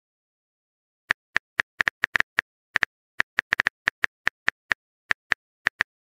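Keyboard typing sound effect: a quick, uneven run of short sharp clicks, starting about a second in after a brief silence.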